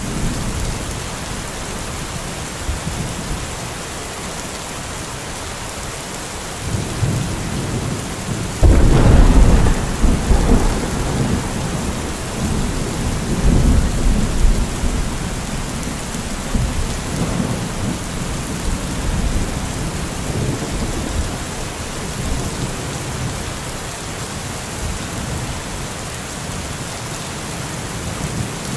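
Heavy rain falling in a steady hiss, with thunder: a sudden loud clap about nine seconds in that rolls on in low rumbles for several seconds, then fainter rumbles.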